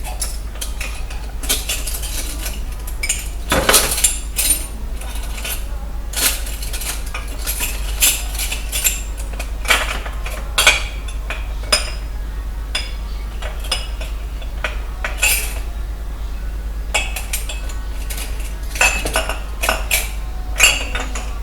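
Dishes and cutlery clinking and knocking together as they are fitted tightly into place, in scattered irregular strikes, with a steady low hum underneath.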